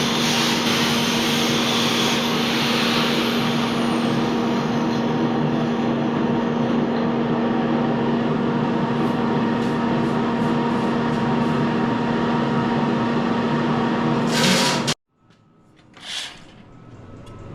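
Electric arc welder running one long continuous bead, a steady loud hiss that cuts off suddenly near the end when the arc is broken; a short, fainter noise follows a moment later.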